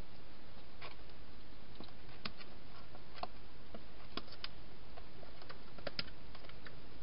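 A wild hedgehog eating: irregular crisp clicks of chewing, a few a second, over a steady hiss.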